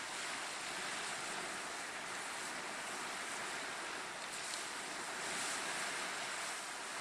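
Small wind-driven waves breaking and washing up a sandy shore, with wind blowing across the microphone. The hiss of surf and wind is steady and swells a little about five seconds in.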